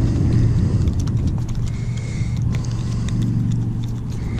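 Steady low hum of a boat engine running at low revs, with scattered light clicks and rattles from handling the fish and tackle.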